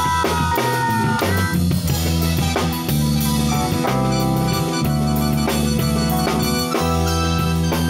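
Live funk band playing, with the drum kit keeping a steady beat of kick, snare and rimshot strikes over a bass line.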